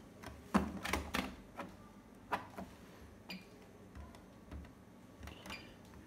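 Push buttons on a Bosch Classixx 6 VarioPerfect washing machine's control panel clicking as the option buttons are pressed, a scattered run of sharp clicks, the loudest in the first second or so.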